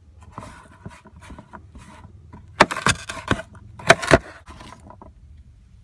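A chef's knife chops an orange bell pepper on a cutting board. About five sharp knocks of the blade hitting the board come in a quick run around the middle, with softer slicing and scraping sounds between them.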